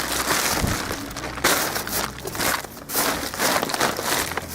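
Irregular crunching and rustling, as of footsteps on dry leaves and frozen ground.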